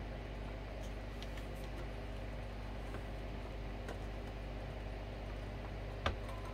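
Steady low electrical hum with a few faint clicks, and a sharper click about six seconds in, from small parts of a record player being handled.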